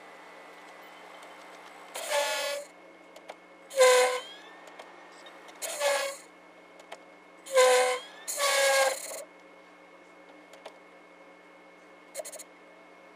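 SV2000 VHS/DVD recorder combo making its strange noise, a short pitched buzzing tone repeated five times about two seconds apart, with a brief blip near the end, over a steady hum. The uploader says every unit of this model does the same.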